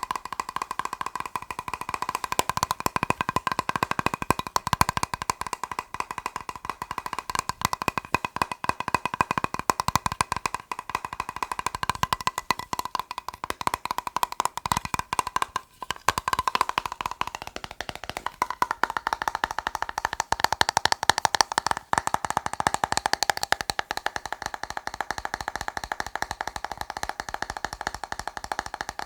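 Fast, dense tapping on a plastic box, with a hollow ringing note under the taps. The tapping breaks off twice, briefly.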